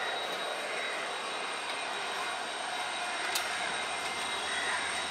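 Steady drone of diesel trains running at a railway platform, with one sharp click a little past three seconds in.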